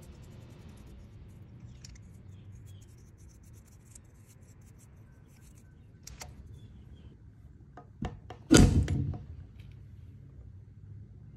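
A low steady hum with faint scattered ticks, then a few sharp clicks and one loud, short knock with a brief ringing tail about eight and a half seconds in.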